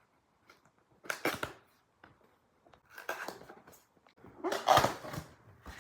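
A cardboard keyboard box and its packaging being opened by hand: scraping and rustling in three short bursts, the loudest near the end.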